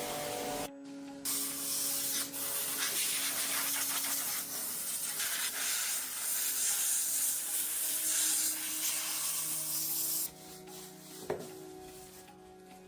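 A dry, hissing rubbing noise, as in abrasive work on a surface, running for about nine seconds and cutting off abruptly; faint music sits beneath it.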